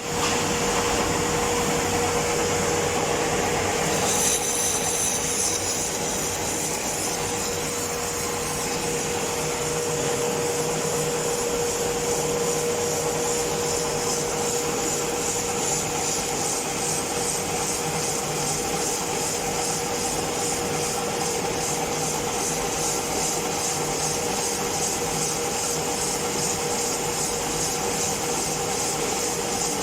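Metal lathe running under cut, its tool scraping a metal casting: a steady hum-like tone with a hissing scrape over it that gets brighter about four seconds in.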